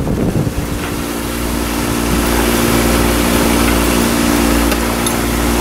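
A boat engine running with a steady drone, getting a little louder about two seconds in.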